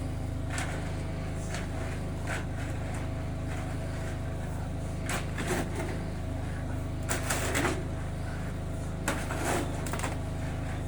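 A motor running steadily with a constant low drone, with scattered short scrapes and knocks over it.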